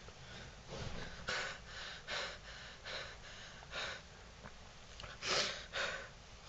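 A person breathing, a faint run of short breaths about one a second, a little louder near the end.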